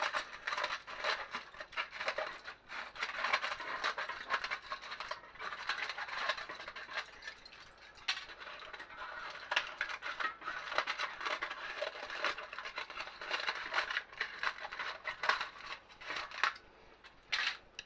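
Aluminium foil lining an air fryer basket crinkling and rustling as it is peeled back and cut away with scissors, a dense run of small crackles.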